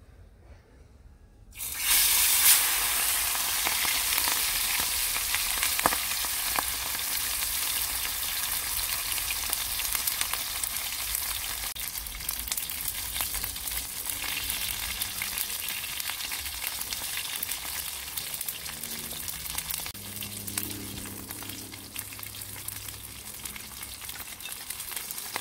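A large piece of silver snapper hits hot oil in a pot and fries. The sizzle starts suddenly about a second and a half in, loud at first, then keeps going steadily and eases a little.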